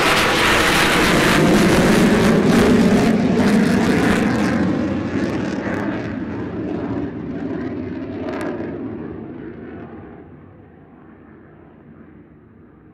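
F-35A fighter's F135 jet engine at full take-off power, loud and crackling as the jet rolls and lifts off. About five seconds in it starts to fade as the aircraft climbs away, the high hiss dying first, leaving a faint low rumble by the end.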